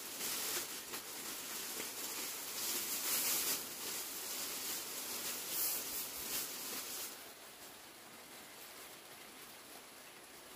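Thin plastic sheeting rustling and crinkling as it is shaken out and pulled on, with many small crackles. It drops to a faint steady hiss about seven seconds in.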